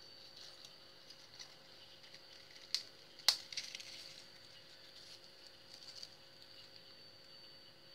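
Crisp Saladix Cross wheat crackers being snapped apart between the fingers: two sharp cracks about half a second apart around three seconds in, followed by faint crumbling and a few small ticks of the pieces being handled.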